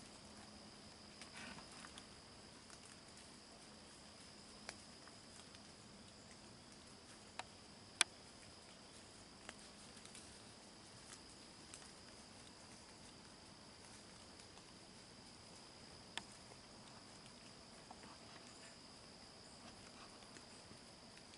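Quiet woods: a faint steady high insect chirring, with a few scattered single ticks and clicks, the loudest about eight seconds in.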